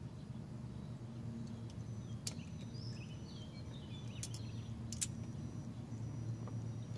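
A few faint, sharp clicks of small steel parts being worked by hand at a truck's rear axle hub, as the retaining spring clip and key of the hub nut are pried out. A steady low hum sits under the clicks.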